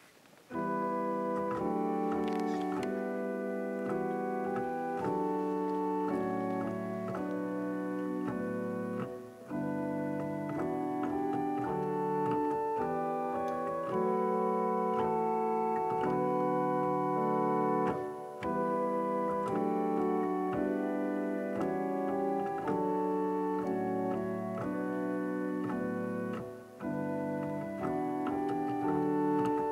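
Church organ playing held chords that begin about half a second in, pausing briefly between phrases roughly every nine seconds.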